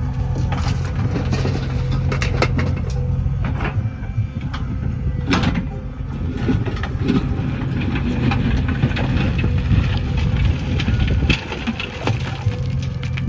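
A backhoe loader's diesel engine running under load, with repeated knocks and clatter through it, the loudest about halfway through.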